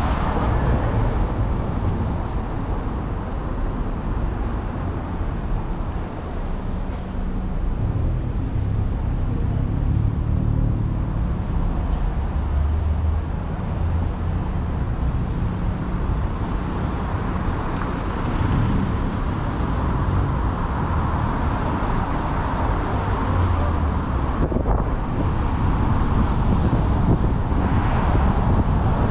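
Car being driven along a road: steady tyre and engine noise, the engine's low hum strengthening partway through.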